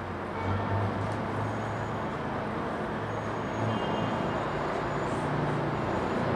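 Diesel locomotive engine rumbling as it approaches, getting gradually louder, with a few faint high squeals on top.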